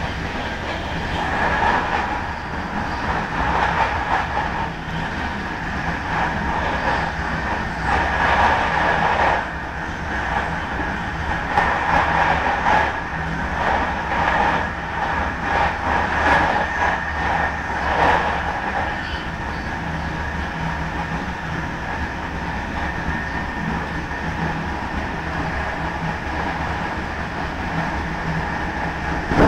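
Train running along the track, heard from on board at the front: a continuous running noise with a steady hum underneath. It swells louder several times over the first twenty seconds, then settles to an even level.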